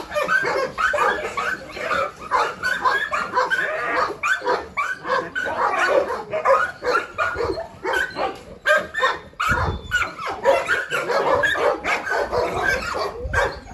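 Several kennelled dogs barking and yipping at once, their barks overlapping without a break.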